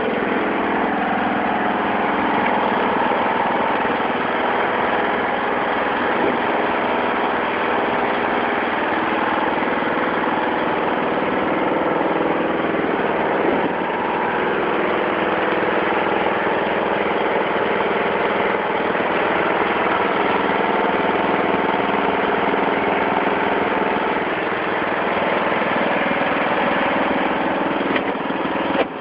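Toro Wheel Horse HXL 16-44 lawn tractor's engine running steadily, with an unchanging pitch and level.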